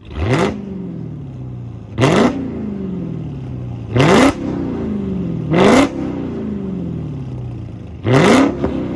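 V8 engine exhaust, idling between five sharp throttle blips about every two seconds; each rev shoots up quickly and then sinks slowly back to idle.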